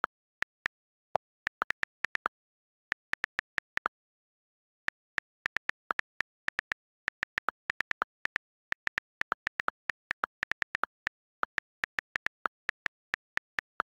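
iPad on-screen keyboard key clicks as text is typed: quick irregular runs of short, sharp ticks, several a second, broken by brief pauses.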